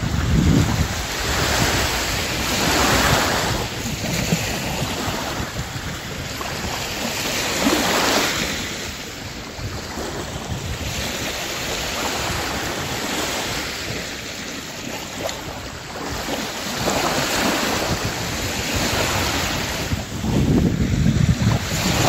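Small sea waves washing up a sandy beach, the rush of surf swelling and easing every few seconds. Wind rumbles on the microphone at times, strongest near the end.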